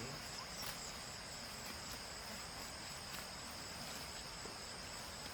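Steady, high-pitched insect chorus, with a couple of faint clicks.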